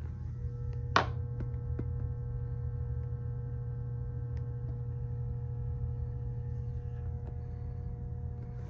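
Steady low hum with a few faint steady tones over it, and one sharp click about a second in.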